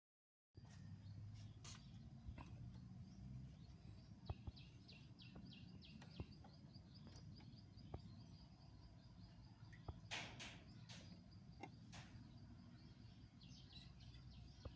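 Faint outdoor ambience: birds chirping in quick runs of high notes over a steady low rumble, with a few soft clicks. The sound cuts in about half a second in after dead silence.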